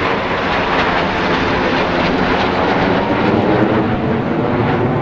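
Formation of four military fast jets passing low overhead: a loud, steady rush of jet-engine noise.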